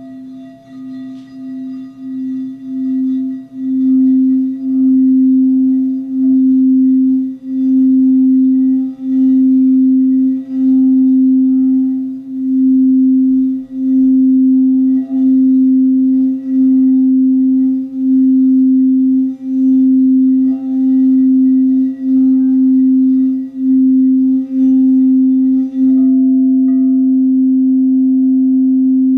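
Frosted crystal singing bowl played by circling its rim with a wand: a single sustained note that swells over the first few seconds and pulses about once a second as the wand goes round. Near the end the rubbing stops and the note rings on steadily.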